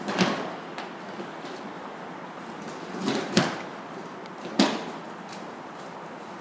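Passenger train rolling slowly through the station, its wheels clacking over the points: three sharp clacks, the loudest two near the middle, over steady background noise.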